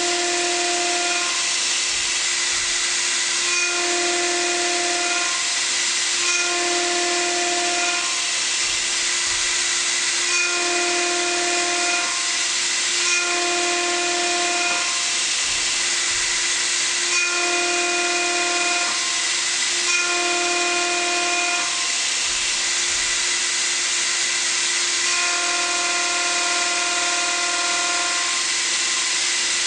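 An abrasive wheel grinding a rotating steel workpiece on a grinding machine, with a steady high hiss. A pitched whine comes and goes about every two to three seconds, each time lasting about a second and a half.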